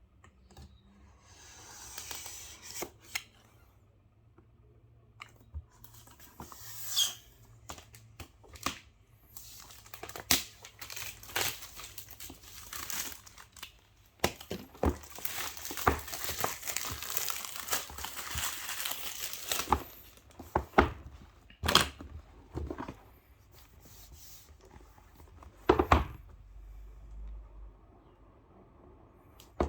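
Packaging of a mechanical keyboard being opened and handled: plastic and paper rustling and crinkling, longest in the middle, with scattered knocks and taps of the box and its contents.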